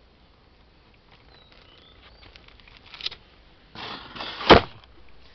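Footsteps of a person in shoes on stone slabs close to the microphone: a short scuff about three seconds in, then a longer shuffling scrape that ends in a sharp knock, the loudest sound, about four and a half seconds in.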